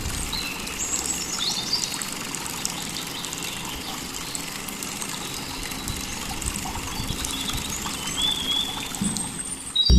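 Birds chirping over a steady trickle of running water.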